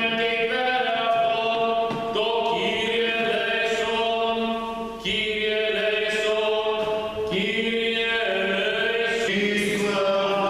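A man's voice chanting Greek Orthodox liturgical chant, holding long sung notes in phrases of a few seconds each.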